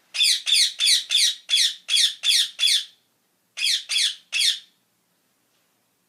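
Rose-ringed parakeet squawking: a rapid run of about eight calls, a short pause, then three more.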